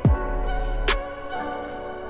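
Background music beat: a deep kick drum falling in pitch at the start and a sharp drum hit about a second in, over steady sustained notes.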